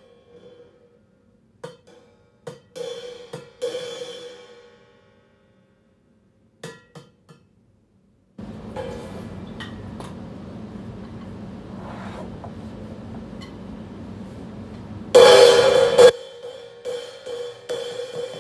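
B8 bronze Marathon cymbal played with a drumstick: a few light taps that ring out, a pause, then a steady rough wash for several seconds. The loudest moment is a hard crash about fifteen seconds in that cuts off suddenly about a second later, followed by quick repeated taps that keep ringing.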